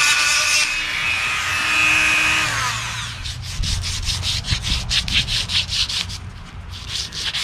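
A small power tool whines steadily, then winds down and stops about two and a half seconds in. It is followed by rhythmic hand-sanding strokes rubbing back and forth, about three a second.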